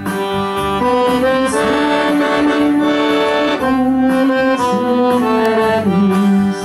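Accordion playing a tune in held notes over a steady bass beat.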